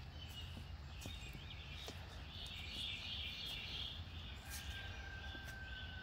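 Faint backyard ambience: birds and insects chirping steadily, with one long, thin, steady whistle starting about two-thirds of the way in. Underneath are a low steady rumble and a few soft footstep clicks.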